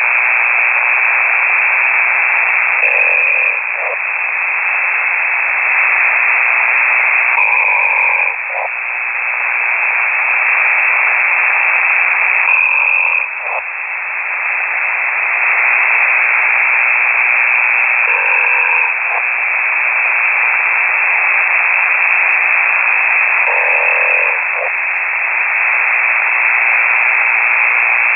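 Snoring sent over an amateur radio transmission and heard through a KiwiSDR receiver: a loud, raspy hiss squeezed into the narrow radio band, with a short break about every five seconds, in time with breathing.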